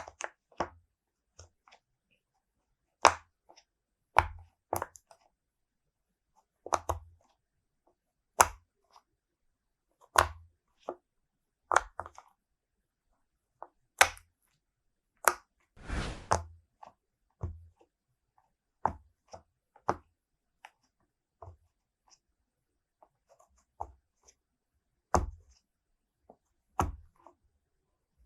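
Apple-shaped silicone pop-it fidget toy, its bubbles pressed in one at a time with the fingers, each giving a short sharp pop, about one a second with gaps between. About halfway through there is one longer, noisier sound.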